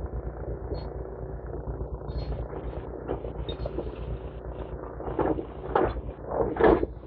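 Demolition excavator's diesel engine running steadily, with three or four louder knocks or clatters of debris in the last couple of seconds.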